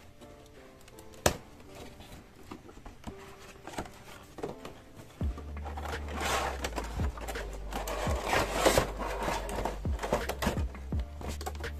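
Clear plastic blister packaging crinkling and rustling as it is handled and pulled out of a cardboard figure box, over background music. A single sharp click comes about a second in.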